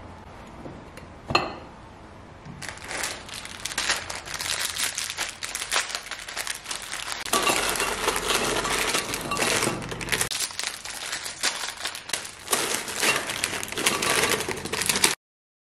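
Plastic Oreo biscuit packet crinkling and rustling as biscuits are tipped from it into a glass jar, with biscuits clinking against the glass. A single sharp glass clink about a second in. The sound cuts off suddenly near the end.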